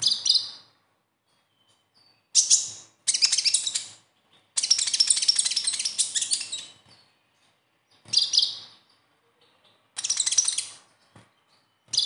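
Male kolibri ninja (Van Hasselt's sunbird) giving its besetan song: bursts of rapid, scratchy high-pitched chattering, several short phrases and one longer run of about two seconds, with brief pauses between.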